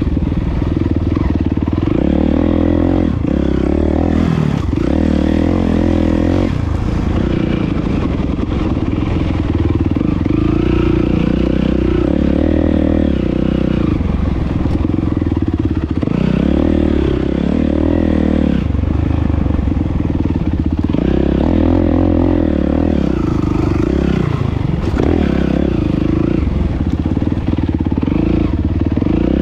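Dirt bike engine ridden on a motocross track, revving up and dropping back again and again as the rider accelerates out of the turns and eases off into them.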